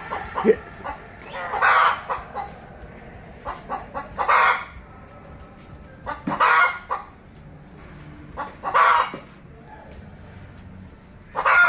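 Chicken calling in five short, loud squawks about two and a half seconds apart, with softer clucks between.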